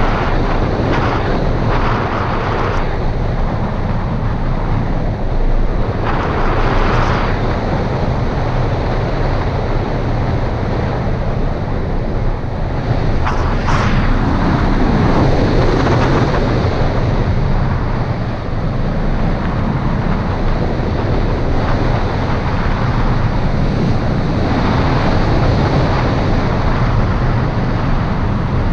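Airflow rushing over the microphone of a camera mounted on a hang glider in flight: loud, steady wind noise, with a few brief gusty swells.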